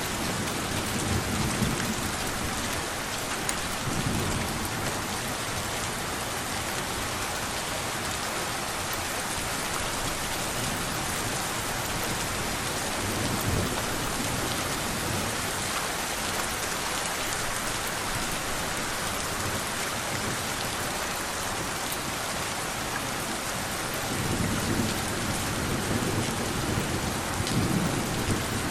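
Steady rain falling, with low rumbles of thunder a few times and more often near the end.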